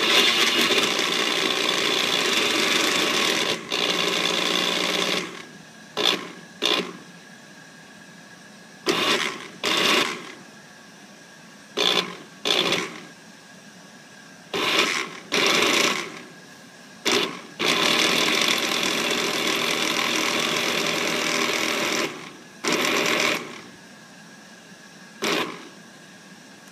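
Motor of a student-built blender running at its high setting, switched on and off: a run of about five seconds at the start, a string of short bursts of a second or less, another run of about four seconds in the second half, then more short bursts.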